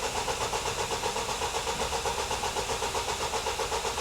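Starter motor cranking the Vauxhall Vivaro's diesel engine, which turns over in an even rhythm of about six compression pulses a second without firing. This is a crank-no-start with too little fuel pressure, caused by the immobiliser not reading the key.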